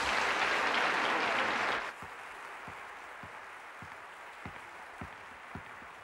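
Audience applause that cuts off abruptly about two seconds in. It is followed by faint, steady footsteps on a wooden floor, a little under two steps a second.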